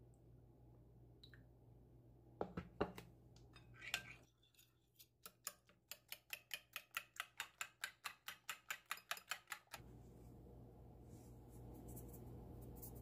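Fork beating eggs and milk in a plate, its tines clicking against the plate in an even rhythm of about four strokes a second, after a few louder knocks about two to four seconds in.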